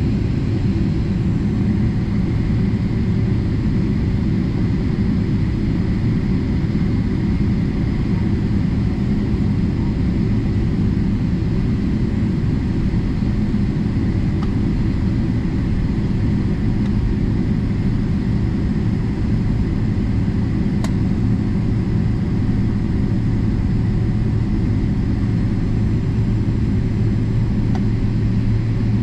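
Steady low rumble of an airliner's cabin while taxiing after landing: jet engines at low taxi power, with a faint steady hum underneath.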